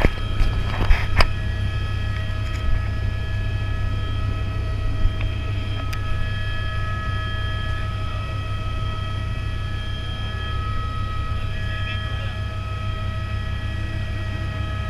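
Helicopter heard from inside the cabin as it lifts off and flies low. A steady low rotor beat runs under a turbine and gearbox whine of several steady tones, with a few clicks in the first second or so.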